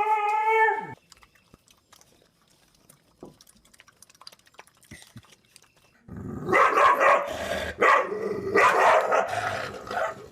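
A dog making one steady whining note for about a second. Then, after a quiet stretch with faint clicks, it barks and growls in loud, rough bursts from about six seconds in.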